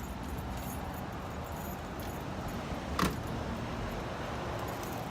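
Small metal jingling and light clinks over a steady low rumble, with one sharper click about three seconds in.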